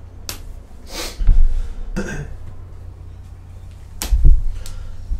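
Handling noise close to the microphone: several short rustling bursts and clicks, with two dull low thumps, about a second in and about four seconds in, as the loudest sounds.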